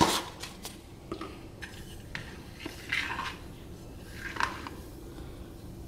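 A steel spoon clinking and scraping a few times against a plastic bowl of semolina batter, in short, scattered knocks. A faint steady hum runs underneath.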